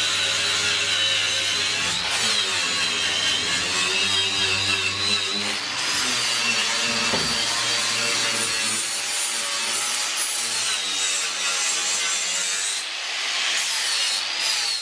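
Angle grinder cutting into the steel body of a Nissan S13, a continuous high whine that rises and dips as the disc bites under load.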